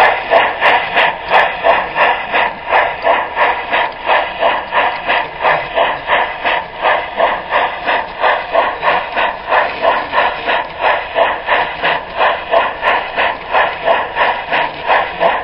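Model steam locomotive chuffing steadily on a large-scale garden railroad, about three even chuffs a second.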